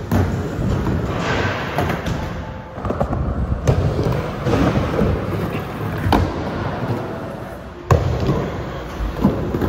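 Skateboard wheels rolling on a smooth concrete skatepark, a steady rumble broken by several sharp clacks of the board hitting the surface. The loudest clack comes about eight seconds in.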